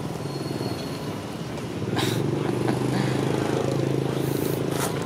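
A vehicle engine running steadily, growing louder and steadier about two seconds in, with a couple of short sharp knocks over it.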